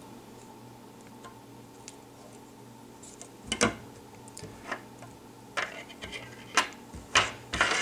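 Light, sharp clicks and taps of small metal fly-tying tools at the vise, with the thread being wrapped around the hook: a faint steady hum at first, then about half a dozen separate clicks from about three and a half seconds in, the loudest near the end.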